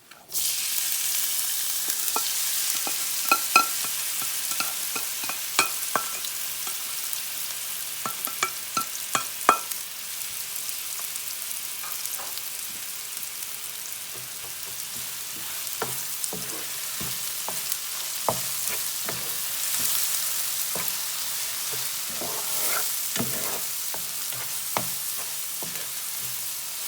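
Onion tipped into hot oil in a frying pan, bursting into a loud sizzle the moment it lands, then frying steadily. A spatula scrapes and knocks against the metal pan as the onion is stirred, with a cluster of sharp clacks in the first ten seconds and more later.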